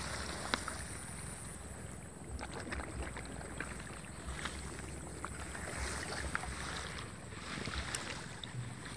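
Grass and rice stalks rustling and brushing against a camera moving through them, over a steady low wind rumble on the microphone, with scattered light ticks.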